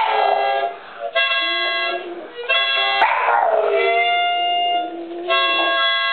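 Boston Terrier howling along with a toy harmonica. The harmonica plays short held chords, and the dog answers in between with long wavering howls that slide up and down in pitch.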